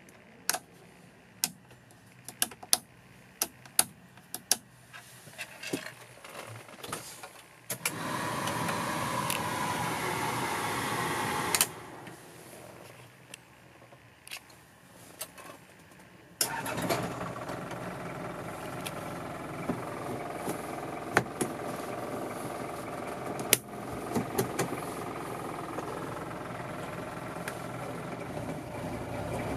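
A series of sharp clicks from the cab's switches and key, then a few seconds of louder steady mechanical noise that cuts off. About sixteen seconds in, the Toyota 2L 2.4-litre naturally aspirated diesel starts and keeps running steadily at idle.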